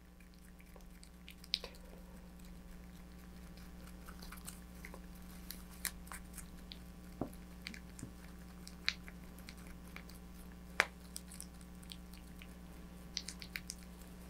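Thick two-part epoxy being stirred in a small mixing cup with a stick: faint sticky scraping with scattered light clicks and ticks. A steady low hum runs underneath.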